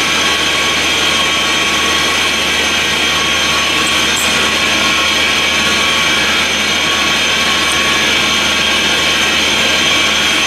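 Portable air compressor running steadily: a constant loud drone with several steady high whines.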